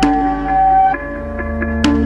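Ambient electronic background music: sustained tones, with a new note struck at the start and again near the end.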